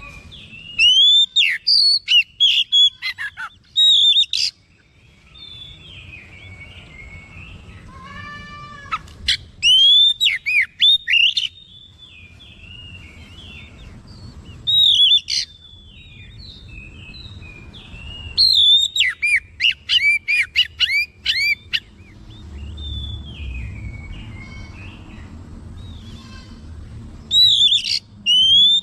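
Oriental magpie-robin in full song: loud bursts of sharp, quickly rising and falling whistled notes come five times, with soft continuous warbling between them. Near the middle there is a short, lower buzzy call.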